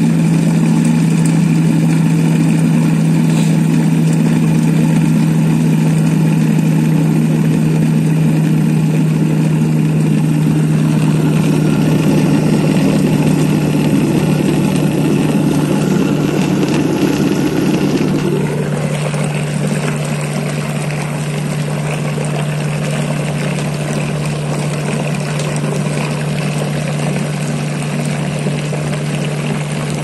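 Electric mixer running steadily with a constant hum, whipping eggs and oil into mayonnaise as the oil is added. About 18 seconds in the sound shifts and gets a little quieter.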